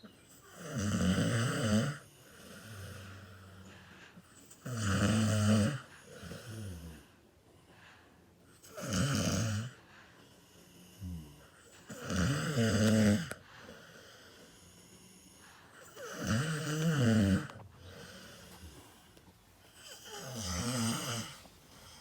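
A sleeping adult snoring: six loud snores about four seconds apart, with softer breaths between them.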